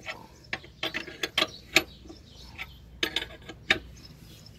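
Irregular metal clicks and clinks of a wrench turning and tightening the clamp screw of a tractor-tyre bead breaker press, fixing it onto the wheel rim.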